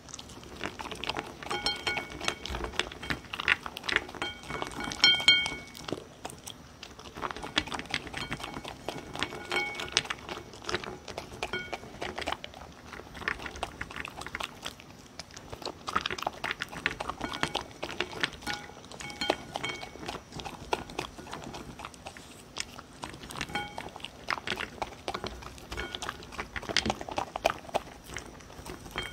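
A dog eating from a ceramic bowl: wet chewing and crunching of dry kibble and soft chunks of beef, sweet potato and paprika, with clicks of teeth and food against the bowl, coming in bouts with brief pauses.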